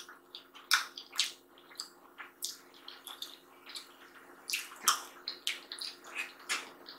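Close-miked wet eating sounds of sadza (stiff maize porridge) and stew eaten by hand: irregular sharp mouth clicks and lip smacks while chewing, with fingers squishing in the stew. A faint steady hum runs underneath.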